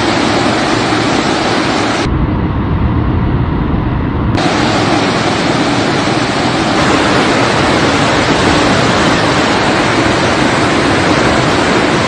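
Floodwater rushing through the opened gates of the Salal Dam on the Chenab River: a loud, steady roar of water. About two seconds in, the sound turns duller and deeper for about two seconds before the full rush returns.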